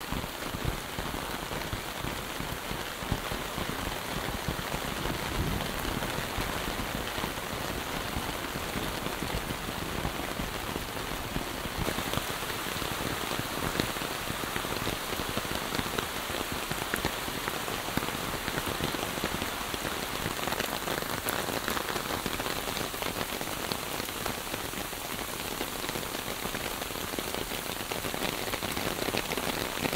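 Steady monsoon rain falling on broad leaves and foliage: a dense, even hiss full of small drop taps. About twelve seconds in the sound turns brighter and crisper.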